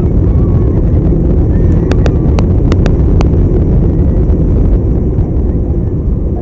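Loud, steady low noise of an Airbus A320 heard from inside the cabin: engines and airflow, with about six sharp clicks or knocks between two and three seconds in.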